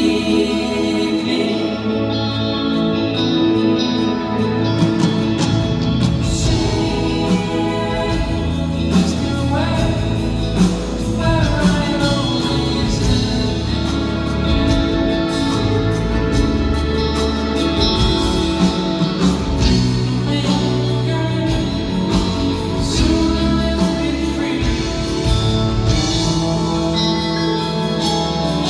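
Live band playing a soft-rock song, with electric guitar, drum kit and a voice singing over it.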